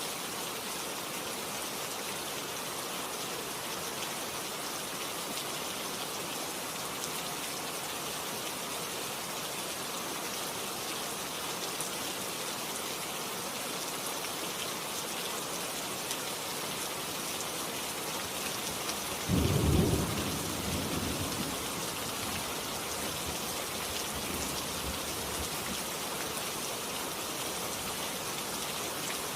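Steady rain falling, with one loud clap of thunder about two-thirds of the way through that rumbles away over several seconds.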